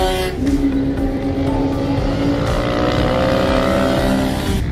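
Motorcycle engines running on a race track: one holds a steady note, then about two seconds in the engines rise slowly in pitch as they accelerate.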